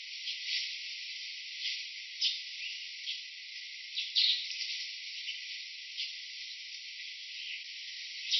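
Dense insect chorus: a steady high buzz with brief, sharper chirps every second or so.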